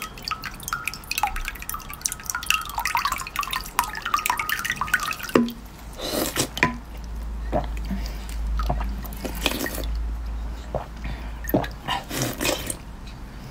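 Supercooled bottled water poured from a plastic bottle onto a spoonful of red ice, trickling and dripping into a glass cup below with a dense patter of small drips. From about six seconds on, close-up mouth sounds of biting and sucking at the ice, with scattered sharp crunches.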